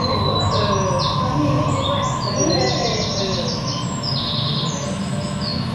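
Many short, high bird-like chirps following one another, over a steady low hum of the room.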